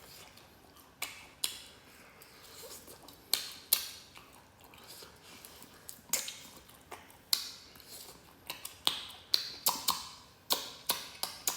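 Close-miked eating of spicy duck wings: biting and chewing, heard as irregular sharp clicks and smacks that come faster in the last few seconds.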